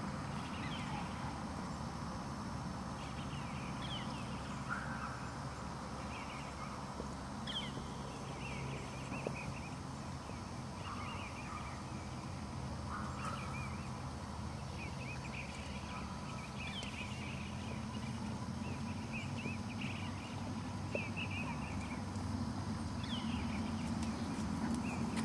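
Birds chirping in many short, scattered calls over a steady low rumble.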